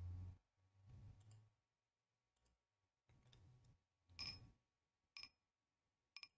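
Near silence with three short, faint ticks about a second apart in the second half, preceded by a few soft low rustles.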